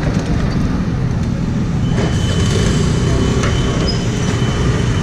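Fuel dispenser at a petrol pump running as petrol is pumped into a motorcycle's tank: a steady low mechanical rumble, with a thin steady whine joining about two seconds in.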